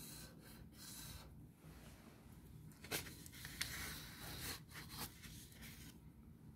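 Felt-tip marker writing on paper: faint scratching strokes in short spells, with a couple of sharper taps near the middle.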